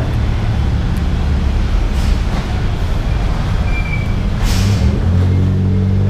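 An engine running close by with a steady low drone. There is a short hiss about four and a half seconds in, and the engine note steadies and grows stronger just after.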